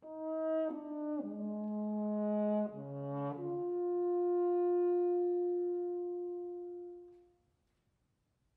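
Unaccompanied French horn playing a slow phrase: a few notes stepping down into the low register, then a leap up to one long held note that swells and fades away about seven seconds in.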